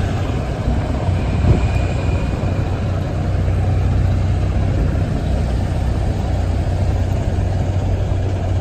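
Sleeper coaches' diesel engines idling, a steady low drone.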